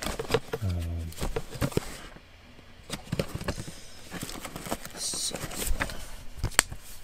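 Paper and cardboard packaging being handled: rustling, with many small clicks and taps as the leaflets and box parts are moved. A brief hum of a voice comes about a second in.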